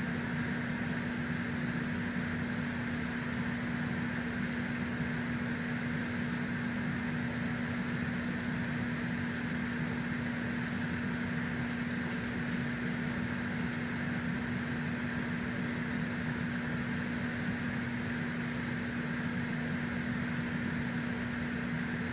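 Steady mechanical hum with one constant low tone and an even hiss above it, unchanging throughout.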